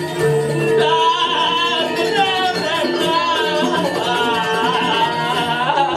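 Music: a voice singing a wavering, ornamented melody over held instrumental notes.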